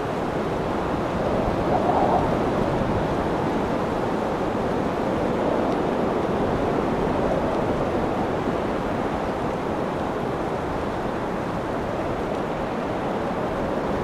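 Strong wind of a tropical windstorm rushing steadily, swelling in gusts about two seconds in and again around the middle.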